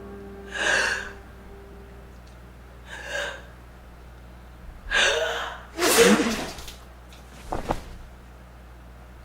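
A person's sharp, breathy in-breaths, three of them a couple of seconds apart, building up to a loud sneeze about six seconds in, followed by a short breath.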